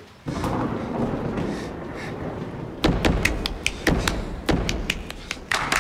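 A low rumble, then about three seconds in a quick, irregular run of sharp thuds and clicks, several a second.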